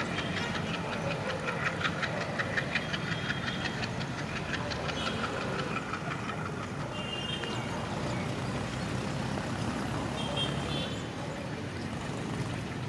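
Indian Railways diesel locomotive running hard as it pulls away, its engine giving a steady rumble. A rapid clattering runs through the first few seconds and then settles into the rumble.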